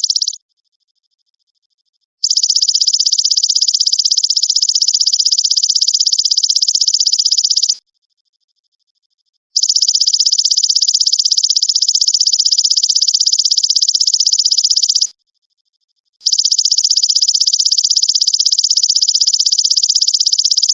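Belalang emas (golden grasshopper) calling: a high, fast-pulsed buzzing trill in long bouts of about five and a half seconds, each starting and stopping abruptly, with gaps of one to two seconds between bouts.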